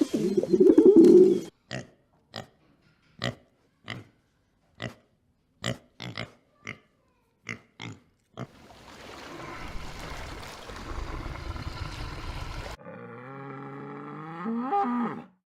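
A run of different animal calls: a low cooing that stops about a second and a half in, then about a dozen short, sharp calls, a stretch of hiss-like noise, and near the end a drawn-out pitched call that rises at its close.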